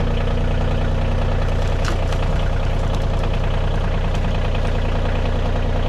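Kubota compact tractor's diesel engine idling steadily, with a few light knocks as a log is turned on a wooden rack.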